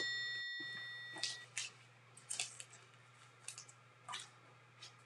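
A bell-like chime fades out over the first second and a half, then a few faint flicks and taps of trading cards being handled and laid on a stack on a wooden table.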